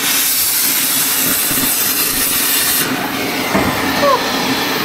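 Oxy-acetylene cutting torch cutting through a steel body mount on a truck frame: the cutting-oxygen jet hisses loudly and stops suddenly about three seconds in, leaving the lower rush of the torch flame.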